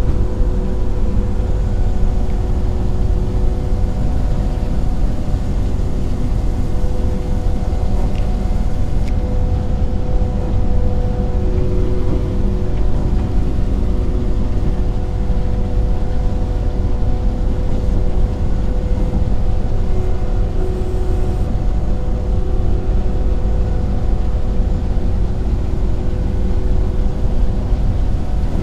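Bizon BS Z110 combine harvester running steadily while harvesting, heard from inside its cab: a constant loud drone with several steady tones over it.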